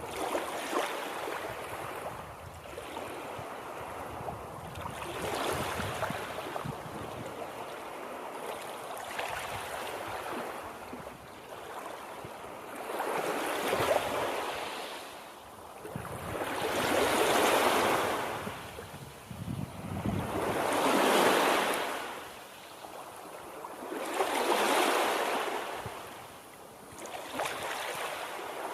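Water waves washing in and drawing back, rising to a loud rush every three to four seconds, with the biggest surges in the second half.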